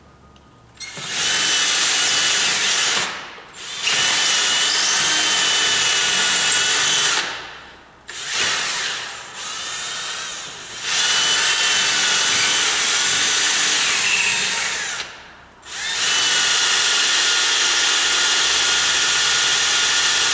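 Electric drill running at high speed, its bit used on its side as a grinder to cut away wood in a deadbolt's bolt hole. It runs in several bursts of a few seconds with brief stops between, and one run is quieter for a couple of seconds.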